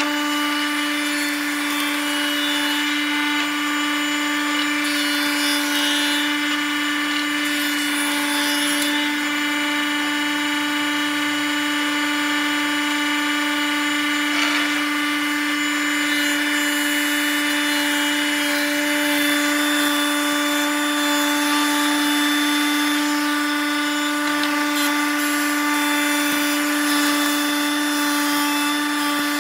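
Spindle moulder (wood shaper) running at a steady speed with a constant whine, its cutter head spinning.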